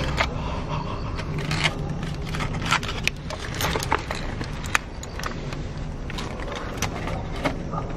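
Aluminium foil crinkling and rustling as it is peeled back by hand from a box of fried chicken, with irregular sharp crackles.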